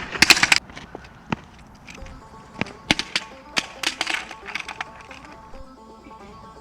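Razor kick scooter thrown and clattering against the ground in a series of sharp metallic impacts, with background music underneath.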